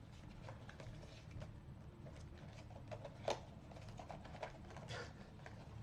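Light clicks, taps and rustling of a small cardboard blind box and its plastic packaging being opened by hand, with one sharper click about three seconds in.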